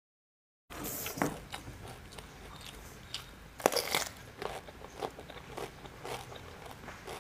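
A bite into a whole raw cucumber, a sharp crisp crack about three and a half seconds in and the loudest sound, followed by crunchy chewing of the cucumber. The first split second is dead silence.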